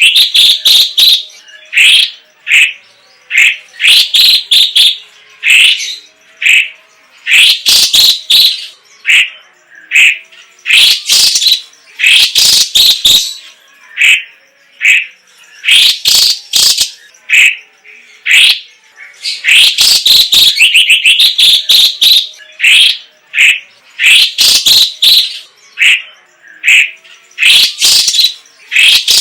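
Leafbird (cucak ijo) singing steadily in quick, varied bursts of high, chattering song phrases, each lasting under a second to about two seconds, with short gaps between them.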